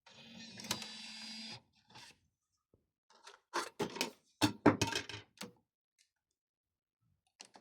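Car radio head unit between sources or stations: a steady hiss with a low hum for about a second and a half, then a string of short, clipped bursts of sound a couple of seconds later.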